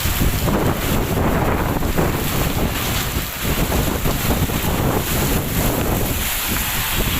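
Heavy rain in strong, gusting wind, the wind buffeting the microphone with a low, fluttering rumble over the hiss of the rain.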